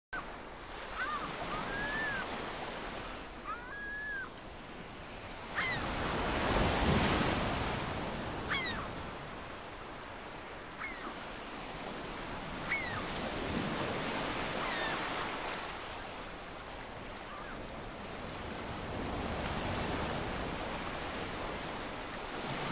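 Ocean surf: waves breaking and washing in, swelling and ebbing every several seconds, with short bird calls sounding several times over it.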